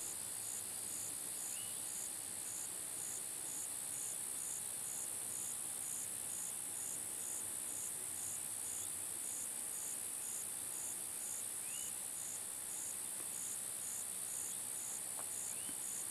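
Evening insect chorus of crickets or katydids: a steady, very high-pitched trill with a slightly lower call pulsing about twice a second. A few faint short chirps break in now and then.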